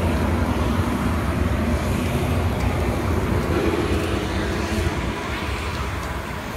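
Jet aircraft engines rumbling steadily, slowly fading toward the end.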